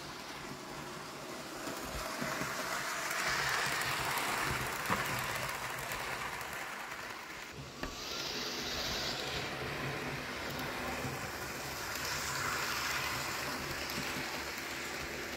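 Bachmann OO gauge LBSC H2 Atlantic model steam locomotive hauling two coaches round a model railway layout: its motor whirrs and its wheels rattle on the track. The sound swells and fades several times as the train comes round close to the microphone and moves away again.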